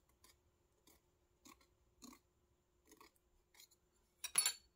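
Faint, short scratchy strokes, about one every half second to a second, then a louder brief rattle near the end: small tools being handled while trimming excess nail sticker.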